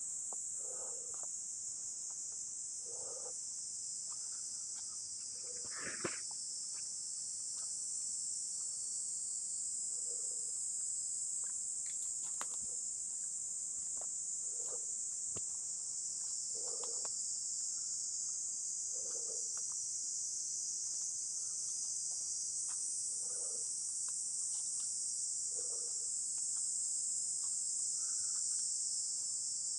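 Dense, steady, high-pitched insect chorus in summer woodland. A softer low call recurs every few seconds beneath it, with a single sharp snap about six seconds in.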